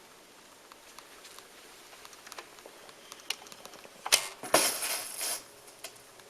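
Mechanism of a BIC 980 belt-drive automatic turntable: scattered light clicks, then a sharp click about four seconds in and a short clatter lasting about a second.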